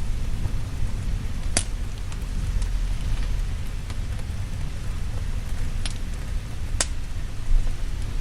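Steady rain with a low rumble underneath, and a wood fire crackling with three sharp pops, about one and a half, six and seven seconds in.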